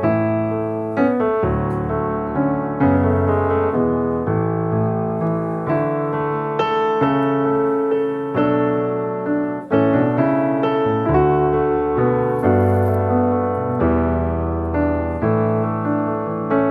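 Background piano music: chords struck about every second or two over a low bass line.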